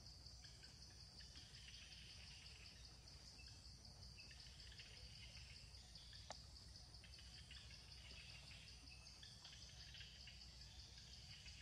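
Near silence with a faint, steady high-pitched chirring of insects, with some fainter chirps over it. A single faint click about six seconds in.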